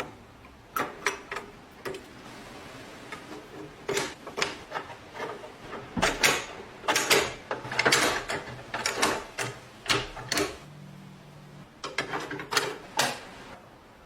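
Metal lock mechanism clicking and clacking as it is worked by hand, in irregular runs of sharp clicks, busiest in the middle.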